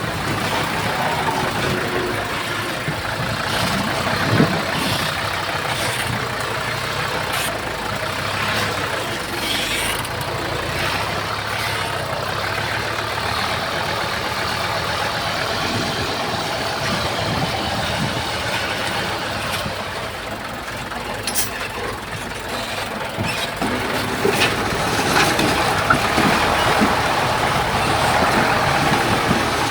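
Komatsu bulldozer's diesel engine running steadily, with scattered sharp clanks and knocks throughout.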